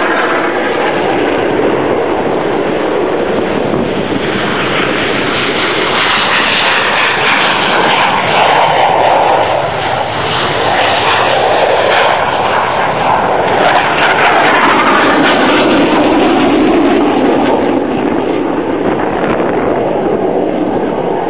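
Panavia Tornado jets flying past: a loud, continuous jet roar with slow sweeping tones that swell twice as the aircraft pass.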